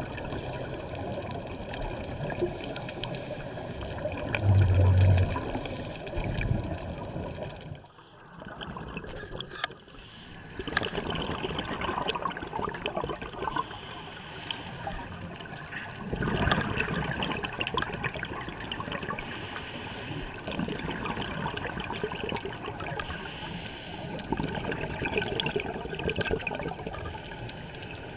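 Muffled underwater sound picked up by a GoPro in its housing: scuba divers' exhaled regulator bubbles gurgling and crackling without a break, with a short quieter spell about a third of the way in.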